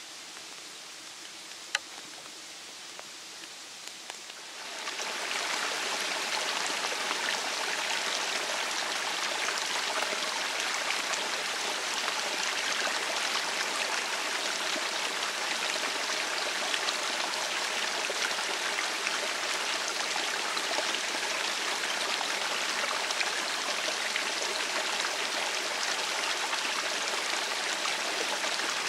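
Quiet woodland ambience with a single sharp click, then about five seconds in a steady rush of flowing stream water sets in and continues unchanged.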